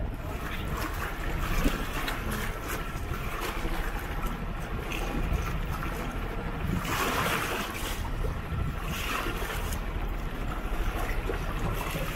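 Water rushing and splashing along the outrigger float of a sailing trimaran under way, with wind on the microphone. There are louder surges of splash about seven and nine seconds in.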